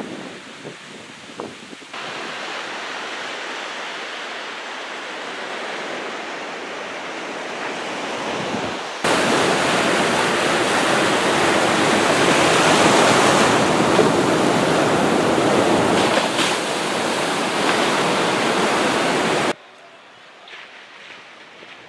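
Ocean surf breaking and washing up the beach, with wind on the microphone. The rush jumps louder about nine seconds in and drops off abruptly near the end.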